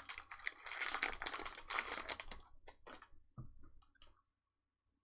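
Trading-card pack wrappers crinkling and cards being handled for about two and a half seconds, then a few light clicks and taps, stopping about four seconds in.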